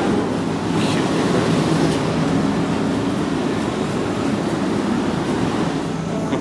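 Steady low rumble inside an electric railcar of the Kishigawa Line, the sound of the train running on the track.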